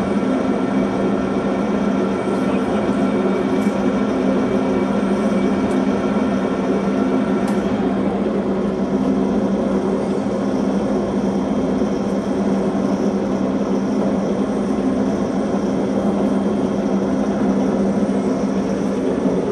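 Tarnow TUJ50 gap-bed engine lathe running under power: a steady motor and headstock drive hum. A higher whine drops out about a third of the way in while the hum carries on.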